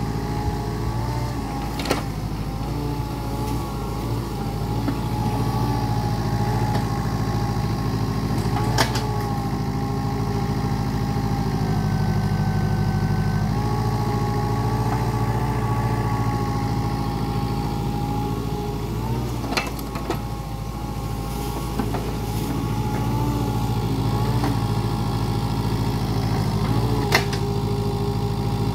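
Mitsubishi mini excavator's diesel engine running steadily while digging, with a whine that wavers in pitch as the boom and bucket work. Four short sharp knocks stand out over it.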